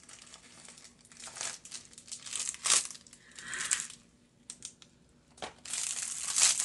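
Packaging crinkling and rustling in irregular bursts as a parcel is opened by hand, with a pause about two-thirds through and the loudest crinkling near the end.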